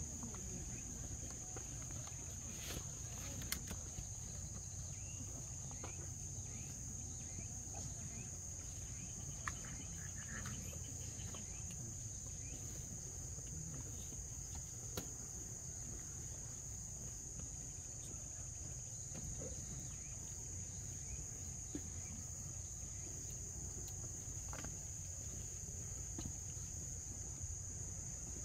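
Insects chirring in a steady high-pitched drone that never lets up, over a low outdoor hum, with a few faint clicks scattered through it.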